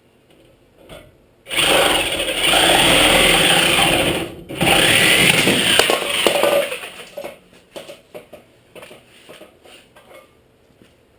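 Handheld power tool running loudly in two bursts of about three and two seconds with a short break between, followed by light scattered knocks.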